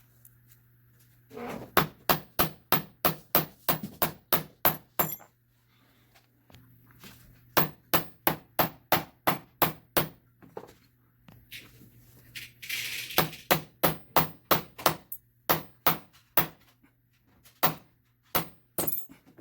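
Ball peen hammer's rounded face striking copper sheet earring blanks, texturing them, in quick runs of sharp metallic blows, about three or four a second, with short pauses between runs. A brief rustle of scraping comes about thirteen seconds in.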